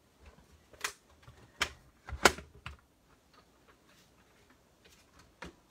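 Stampin' Cut & Emboss die-cutting machine running an embossing folder between its plastic plates: a few sharp clicks and knocks, the loudest a little over two seconds in, with faint ticking between them.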